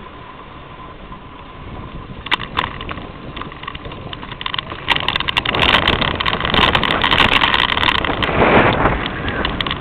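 Bicycle rolling along a tarmac path: steady tyre noise with rattling and clicking from the bike, which grows louder about five seconds in as the ride gets rougher.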